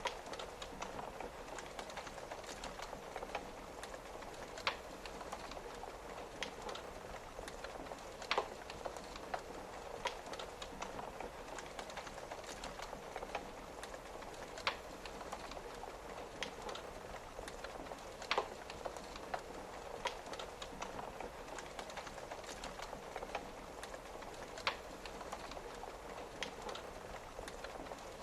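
Wood fire crackling, with small ticks throughout and a sharp pop every few seconds, over a steady hiss of rain on a window.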